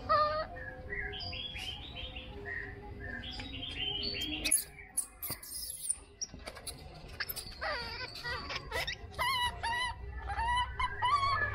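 Baby macaque giving repeated high, wavering calls in short series, with a few sharp clicks and knocks about halfway through.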